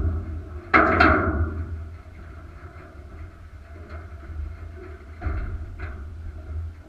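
A sudden clunk about a second in, dying away over a second, then two fainter knocks near the end, from the push pole being stowed and the guide moving about in a small flat-bottomed boat. Under it runs a steady low wind rumble on the microphone.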